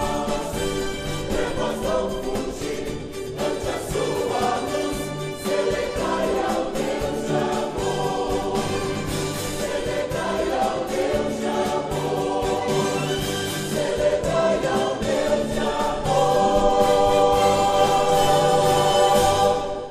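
Mixed church choir singing a gospel song, swelling into a loud held final chord about sixteen seconds in that cuts off sharply near the end.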